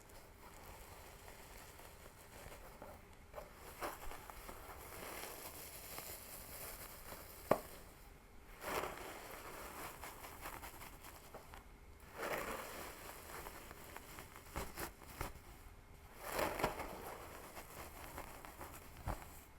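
Hair rustling under fingers as a scalp is scratched and hair pulled: dry scraping swishes that swell in waves every few seconds, with one sharp click about seven and a half seconds in.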